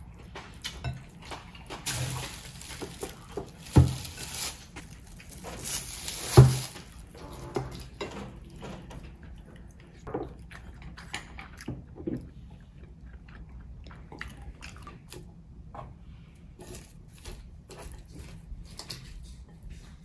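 Close-up eating sounds of raw fish sashimi: wet chewing with many small mouth clicks, and two sharp thumps, a little under four seconds in and again about six and a half seconds in.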